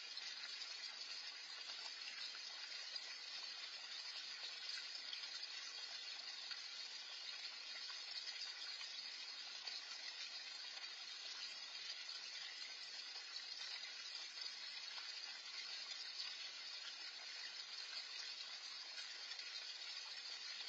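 Water steadily splashing into a small backyard garden pond from its outlet or fountain, picked up by a security camera's microphone.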